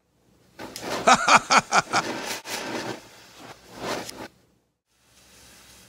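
Large colour smoke bomb igniting from a lighter: a loud spitting, crackling hiss of sparks that lasts about three and a half seconds, swells once more and then cuts off, followed by a faint steady hiss.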